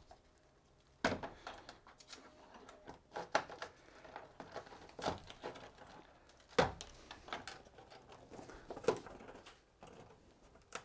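N-scale model railroad track being cut and pulled up from the layout by hand: irregular sharp clicks and snaps, with about five louder ones spread through.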